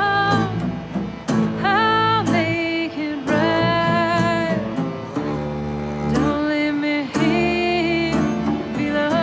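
A song: a voice singing held, wavering notes in phrases of about a second, over guitar and bowed strings.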